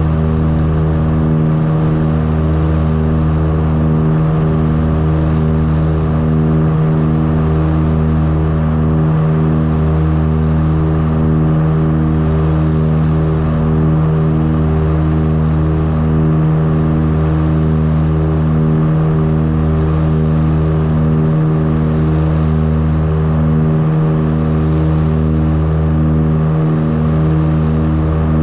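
The twin Rotax 912 four-cylinder engines of a Tecnam P2006T at takeoff power, heard from inside the cockpit as the plane lifts off and climbs. Their steady drone has a slow, regular pulsing.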